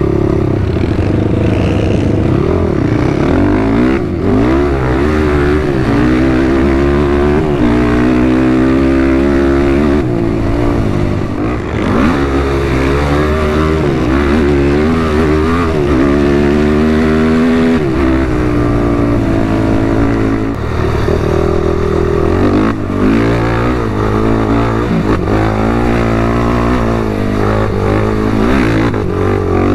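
ATV engine running under way, its revs rising and falling over and over as the quad is ridden, over a steady rushing noise.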